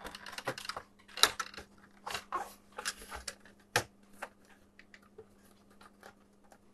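Irregular light clicks and knocks of an Apple IIc's plastic case being pushed and pried as the top cover is worked loose from its clips.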